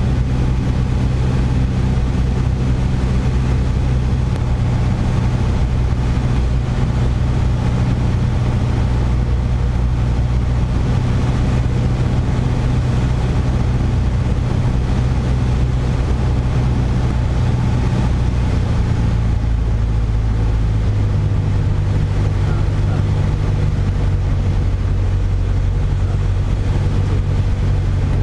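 Single-engine Piper PA28-161 Warrior's four-cylinder Lycoming engine and propeller droning steadily, heard inside the cabin on final approach. Its note shifts lower about twenty seconds in.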